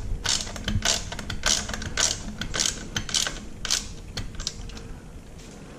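Hand socket ratchet clicking in short runs about twice a second as it tightens a crash-bar clamp bolt, dying away after about four seconds.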